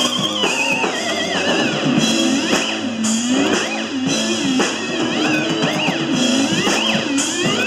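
Live rock band playing a loud instrumental stretch: electric guitar with gliding, bending notes over drums and cymbals.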